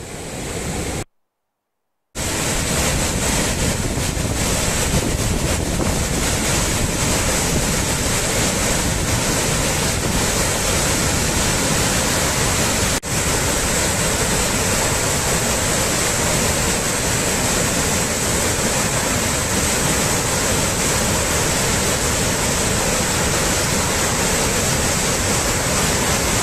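Floodwater rushing over a road in a loud, steady noise, with wind buffeting the microphone. The sound cuts out for about a second near the start.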